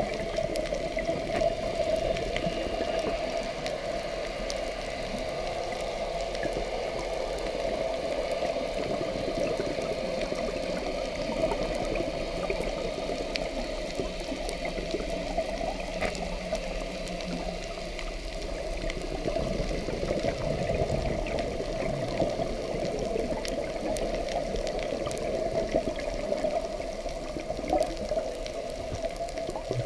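Underwater reef ambience heard through a camera's waterproof housing: a steady, muffled wash with scattered faint clicks.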